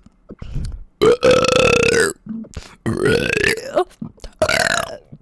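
A woman's loud, deliberate burps, three in a row: a long one of about a second, then two shorter ones.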